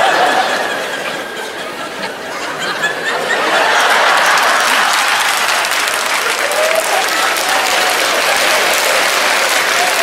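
Theatre audience laughing, then breaking into loud, sustained applause about three and a half seconds in.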